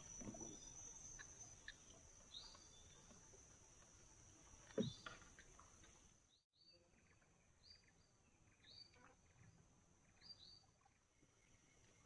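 Faint riverside ambience: a steady high insect drone under short falling bird chirps repeated about once a second. There is a single knock about five seconds in.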